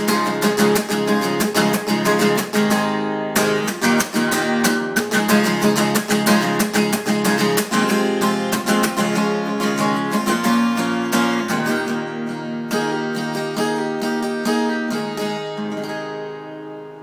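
Instrumental outro of a country song: acoustic guitar strumming chords, the strokes thinning out and the music fading, ending on a ringing chord.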